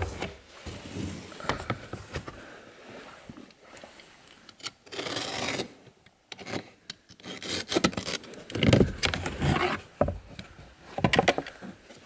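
Gloved hands handling a hard plastic interior trim panel and the floor carpet beneath it, giving irregular rubbing and scraping noises in short bursts.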